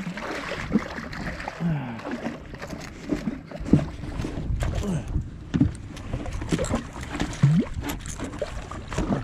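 Hooked redfish thrashing and splashing at the side of the boat, with repeated knocks and bumps against the hull as it is landed.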